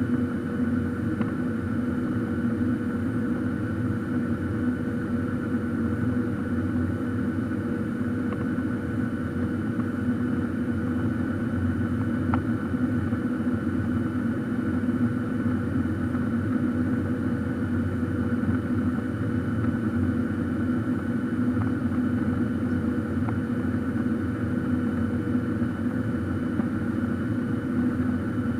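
Steady cabin noise inside a Boeing 737-800 in flight: a constant drone from its CFM56 jet engines, with several steady whining tones over a low rumble.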